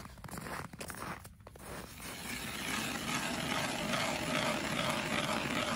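Footsteps crunching on snow, then from about two seconds in a hand ice auger grinding steadily as its blades bore a hole through lake ice.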